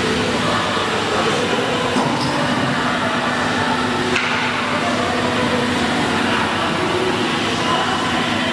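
CNC router with an automatic board-feeding system running: a steady mechanical hum and whir with a faint low tone, and a sharp click about four seconds in.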